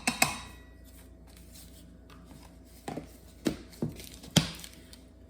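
Kitchen utensils and ingredient containers being handled on a counter while measuring out ingredients: a sharp knock at the start, then a few separate clicks and knocks about three to four and a half seconds in.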